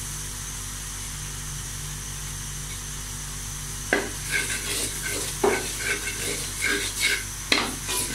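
Flour and ginger frying in oil in a coated wok, roasting to cook off the raw flour. A steady sizzle runs through the first few seconds; from about four seconds in, a metal slotted spatula scrapes and stirs across the pan in irregular strokes.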